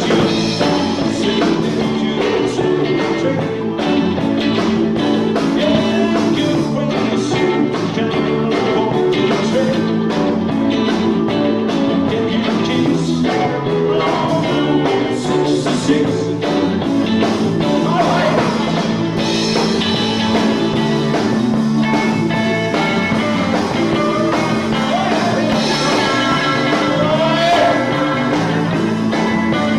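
Rock music with singing and guitar.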